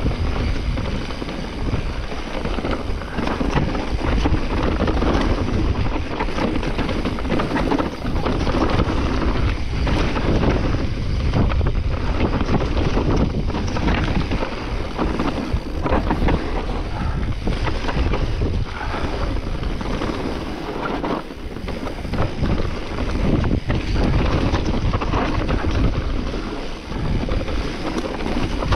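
Mountain bike riding over a rough forest trail: continuous wind buffeting on the microphone, with the rumble of tyres and many small knocks and rattles from the bike.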